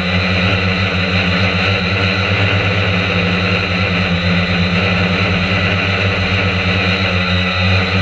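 Quadcopter drone's motors and propellers running steadily, heard from the camera mounted on the drone itself: a loud buzz that holds one pitch throughout.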